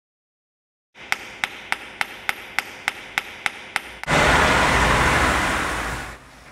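About ten sharp, evenly spaced metallic knocks, roughly three a second: hammer blows on metal. About four seconds in they give way to a loud rush of street traffic as cars drive past, fading out near the end.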